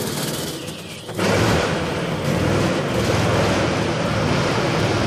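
Go-kart engines running on an indoor track. A loud rushing noise comes in suddenly about a second in and stays.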